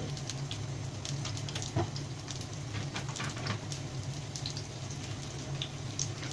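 Korean dumplings frying in hot oil: a steady sizzle with scattered crackles and pops over a low steady hum, and a single knock a little under two seconds in.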